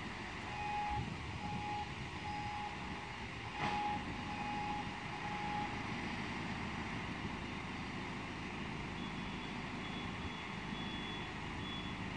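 Heavy construction machinery running with a steady low engine rumble, while a reversing alarm beeps repeatedly for the first half and a fainter, higher-pitched alarm beeps near the end. One sharp knock sounds about three and a half seconds in.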